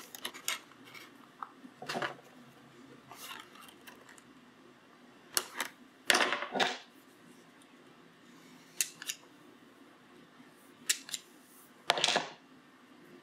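Sharp clicks and clacks of small hand tools and hookup wire being handled on a soldering bench. They come a second or more apart, some in quick pairs, and the loudest fall about six and twelve seconds in.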